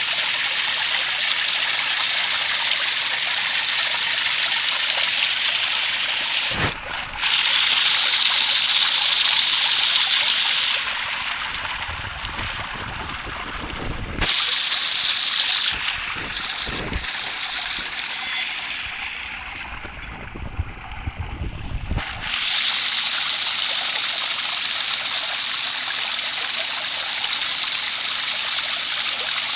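Water rushing through a vortex tube, a steady high hiss of flowing water. About midway it softens and takes on a lower rumble for a few seconds, twice.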